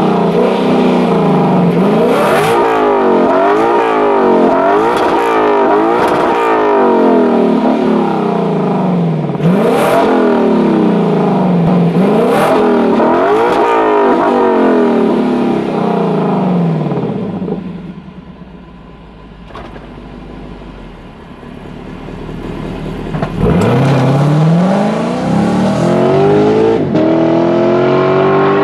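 Lexus LC 500's 5.0-litre naturally aspirated V8 and exhaust, revved again and again with quick throttle blips while standing still. It drops back to a quieter running sound, then about 23 seconds in it accelerates hard, the pitch climbing through a gear change.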